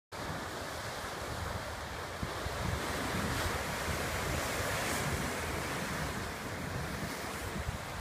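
Ocean surf breaking over a rock shelf: a steady wash of waves that grows louder as a big wave crashes midway, with wind buffeting the microphone.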